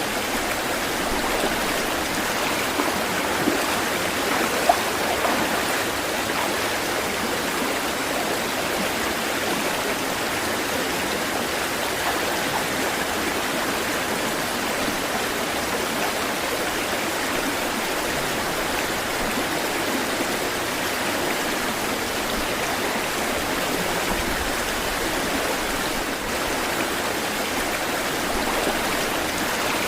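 Water of a stream flowing and rushing steadily, an even wash of sound with no swell or rhythm.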